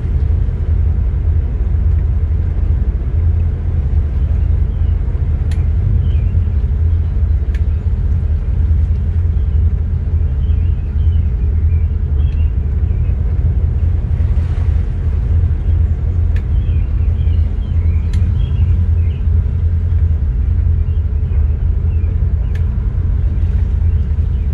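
Mercruiser 7.4-litre V8 inboard engine of a cruiser idling at low speed, a steady low rumble, with a few sharp clicks now and then.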